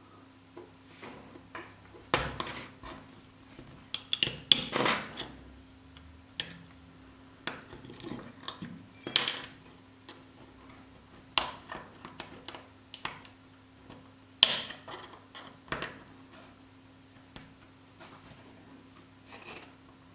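Irregular metallic clinks, taps and short scrapes of small hand tools working on the metal shielding and parts of an old phone's circuit board.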